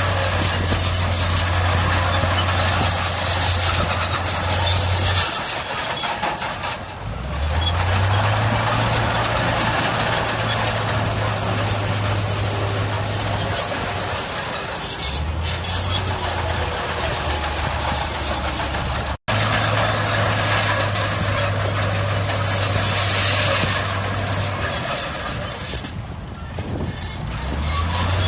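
Heavy diesel earthmoving machinery working in sand. A big engine runs under load, its low note falling away and climbing back up several times, over a steady clatter and hiss.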